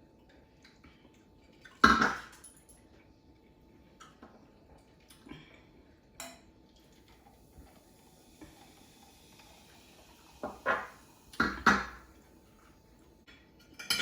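Cutlery and dishes knocking while eating: a loud sudden clatter about two seconds in, a few faint clicks, then a quick run of three or four sharp knocks near the end.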